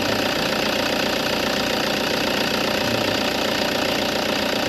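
Toyota Fortuner engine idling steadily, with no squeal from the serpentine belt: the squeak has gone quiet, which points to the serpentine belt as its source.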